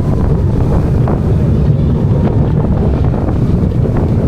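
Indoor kiddie roller coaster running, heard from on board: a steady low rumble from the train on its track, with air rushing over the microphone.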